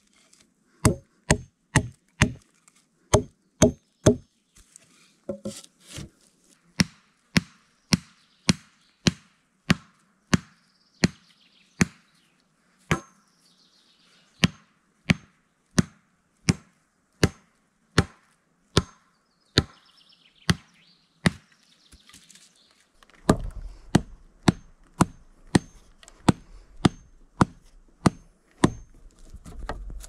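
Wood being chopped with an axe: a steady series of sharp blows, roughly one to two a second, with a couple of short pauses. A low rumble runs under the blows in the last several seconds.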